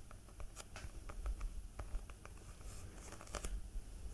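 Fingers tapping and rubbing on the cover of a paperback book held close to the microphone, a run of soft, irregular clicks and taps.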